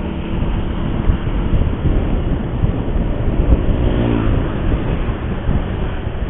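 Road noise from riding along a busy street: steady, loud low rumble of engine and traffic, with a brief pitched engine note from a passing vehicle about four seconds in.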